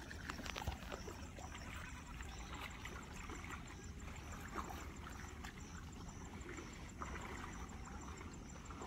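Pond water sloshing and splashing as a man wading waist-deep hauls in a cast net by hand, over a steady low rumble.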